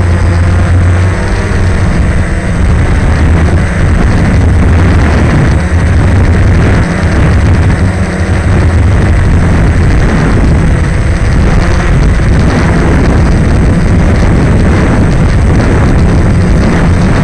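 DJI Phantom quadcopter's motors and propellers running in flight, a loud, steady, rough hum heard from a camera mounted on the drone itself.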